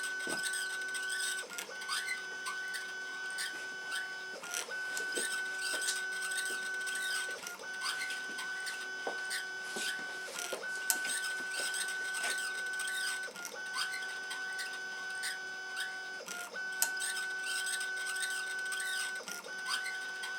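NEMA23 stepper motors on DM542A drivers driving the axes of an Emco 5 CNC lathe through the original pinions and belt, whining at a steady pitch during each traverse of a five-pass turning cycle. The sound breaks off briefly about every three seconds as one axis move ends and the next begins, with light clicks throughout.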